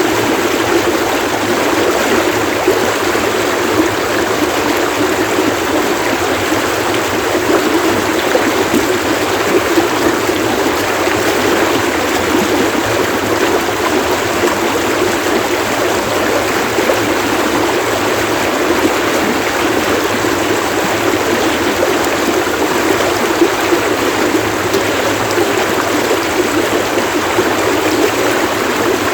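Running water in a stream, splashing steadily without letup.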